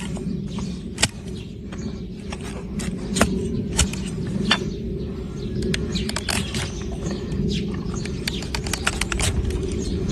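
Hoof-trimming tools cutting and scraping a donkey's hard, overgrown hoof horn: irregular sharp clicks and snaps, several a second in places, over a steady low rumble.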